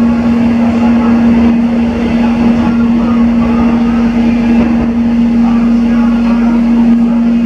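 Interior running noise of an airport electric multiple-unit train travelling at speed: a steady, unchanging hum over a continuous rumble and rush of wheels and air.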